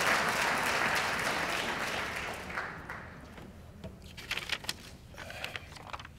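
Audience applauding, dying away about halfway through, followed by a few stray claps.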